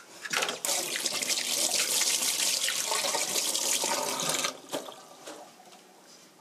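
Water running from a tap for about four seconds, then turned off.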